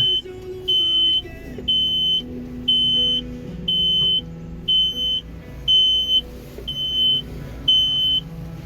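Electronic warning beeper on a Merlo telehandler, sounding a steady high beep about once a second over the low hum of the machine.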